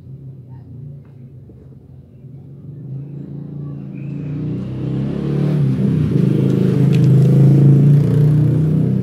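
A motor vehicle's engine approaching and passing close by, growing steadily louder over several seconds and loudest near the end.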